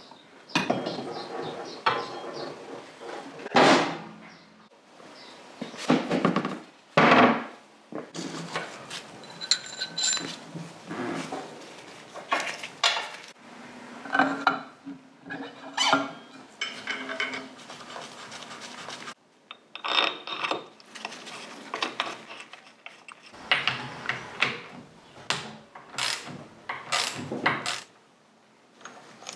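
Metal tools and motorcycle parts clanking, knocking and scraping in irregular bursts during dismantling, some knocks ringing briefly.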